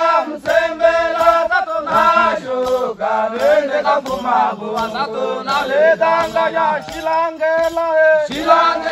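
A group of Hadza men and women singing together, chanting phrases on long held notes that repeat about once a second.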